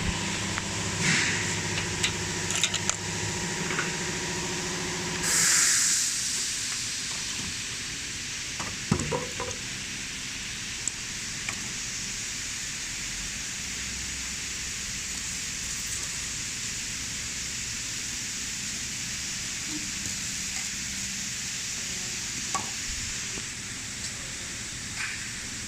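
A steady hiss, with a machine hum of steady tones for the first five seconds or so. A short louder hiss comes about five seconds in, and a few light clicks follow, typical of a CNC hot wire foam cutting machine at work.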